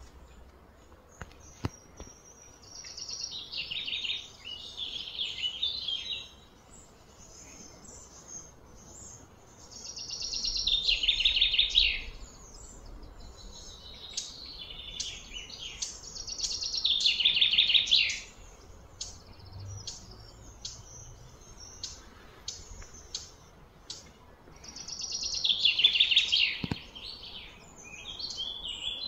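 Bird song outdoors: about four loud, rapid, trilling phrases, each about two seconds long and falling in pitch, with short high chirps scattered between them.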